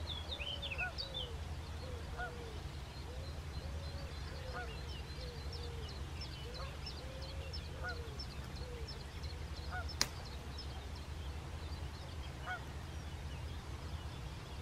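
Geese honking over and over, several calls a second at first and only now and then later on, with small birds chirping higher up and a steady low rumble underneath. One sharp click comes about ten seconds in.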